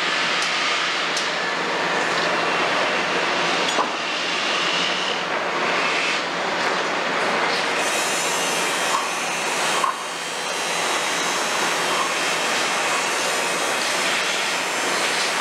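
Kobelco 350 excavator with its Hino six-cylinder diesel running steadily under working load, with hydraulic noise and a couple of short knocks from the bucket and arm.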